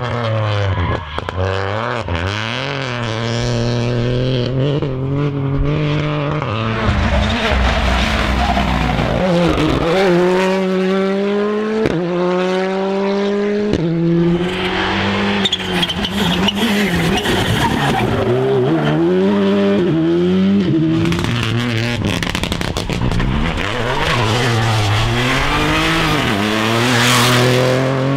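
Rally cars driven flat out on a tarmac special stage, one after another: engines revving hard, pitch climbing through each gear and dropping sharply at every upshift, with repeated run-ups about 9 to 14 seconds in.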